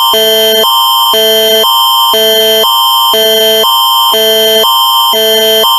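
Canadian Alerting Attention Signal (Alert Ready tone): loud electronic chords alternating every half second between a higher and a lower pair of notes over a steady high tone. It is the attention signal that opens a Canadian emergency alert broadcast.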